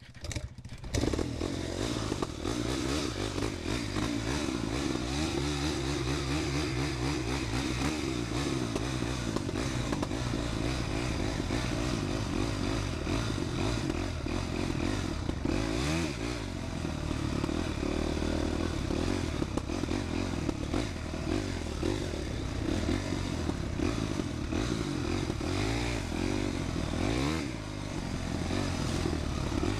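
Honda CRF250X's single-cylinder four-stroke engine pulling the dirt bike over rough, muddy ground, picking up about a second in, with revs rising and falling with the throttle. Knocks and clatter from the bike over the bumps run through it.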